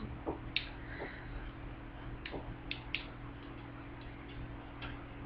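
Faint, scattered clicks of the plastic parts of a Transformers action figure being handled and pressed together while trying to peg them into place, about half a dozen clicks over several seconds.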